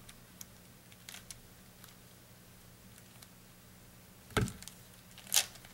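Plastic 8x8 puzzle cube being turned by hand: scattered faint clicks of its layers, then a louder knock about four and a half seconds in and a sharp clack about a second later, over a steady low hum.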